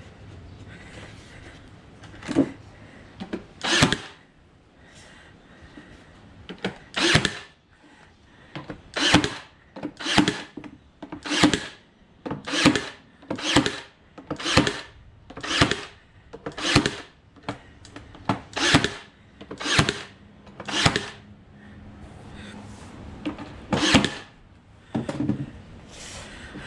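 Cordless nail gun firing nails through a pine batten into door boards: sharp single shots, a couple at first, then a run of about a dozen roughly one a second, and one more near the end.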